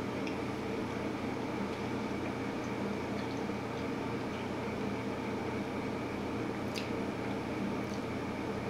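A steady mechanical room hum with a few faint, short, wet clicks of chewing.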